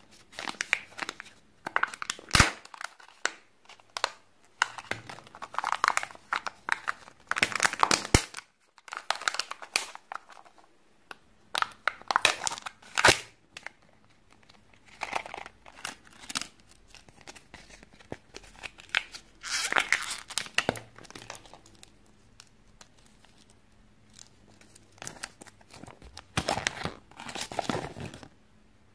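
Kinder Surprise foil wrappers and plastic toy bags crinkled and torn open by hand in irregular bursts, with a few sharp clicks of plastic pieces between them.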